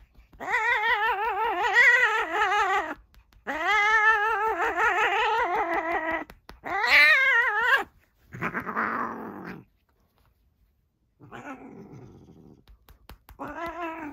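Domestic cat yowling under rump patting: three long, wavering calls in a row, the third shorter and higher. Then comes a rougher, noisier sound as it bites the patting hand, a pause, a softer rough sound, and one brief yowl at the very end.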